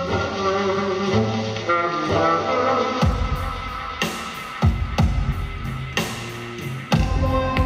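Music playing from an iPod on a speaker dock: a song with sustained pitched notes, where deep bass and hard drum hits come in about three seconds in.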